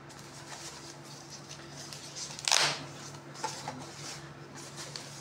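Handling noise: one brief rustle about halfway through and a few light clicks, over a steady low hum.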